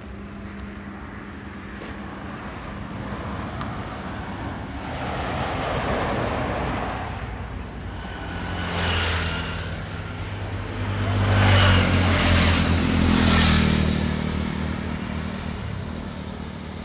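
Vehicles passing on a paved highway: tyre and engine noise swells and fades several times. The loudest pass-by, about two-thirds of the way in, carries a deep engine hum.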